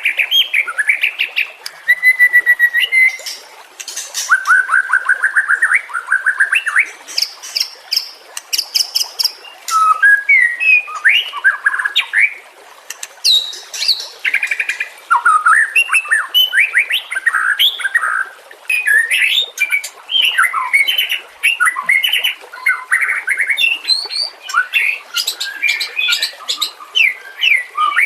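White-rumped shama singing a long, varied song: loud whistled phrases that glide up and down, fast runs of repeated notes, and sharp high chips, with short pauses between phrases.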